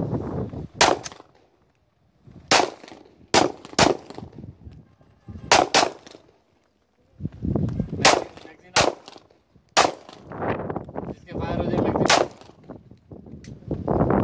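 Pistol shots, about a dozen sharp cracks fired slowly and unevenly, some in quick pairs less than half a second apart.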